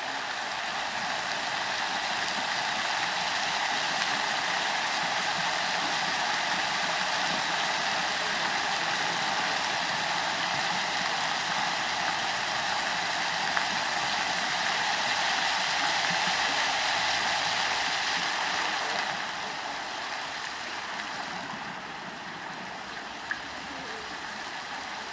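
Fountain water jets splashing steadily into the basin. The sound gets somewhat quieter about three-quarters of the way through, as the jets play lower.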